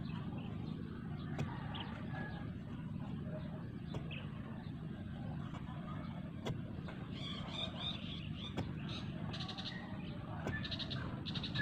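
A long-handled hoe striking the ground in separate chops every couple of seconds as grass is cleared, over a steady low rumble. Short high chirping trills come in during the second half.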